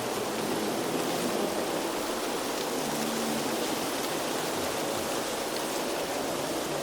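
Steady wind ambience: an even rushing noise with no distinct events.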